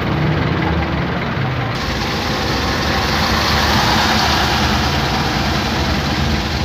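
Steady traffic noise from vehicle engines idling and running in a jam, heavy trucks among them.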